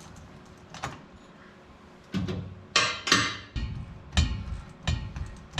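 Irregular metal clanks and knocks, about seven sharp strikes, the louder ones from about two seconds in, as tools work loose the U-joint fasteners on a truck's driveshaft.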